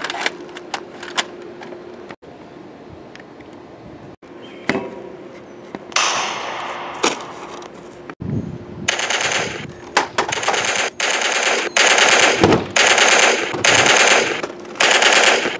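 Bursts of automatic gunfire sound effects, about seven bursts of under a second each in the second half, with a few single sharp shots or clicks earlier.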